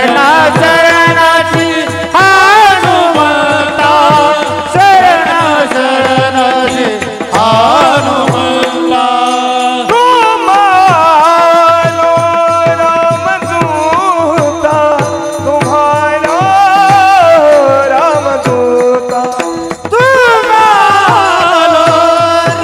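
Men singing a Marathi Warkari devotional bhajan in unison over a steady beat of brass hand cymbals (taal) clashing in rhythm, with a drum keeping time underneath.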